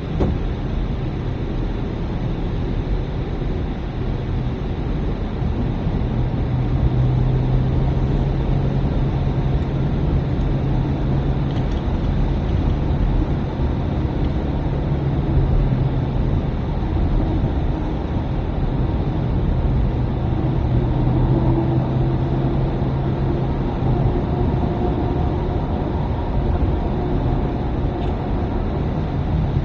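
Car cabin noise while driving on a narrow paved lane: a steady engine hum with tyre and road noise. The engine note grows stronger for a stretch in the middle.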